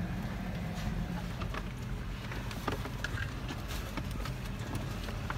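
Vehicle engine idling, heard from inside the cabin as a steady low rumble, with scattered light clicks and taps.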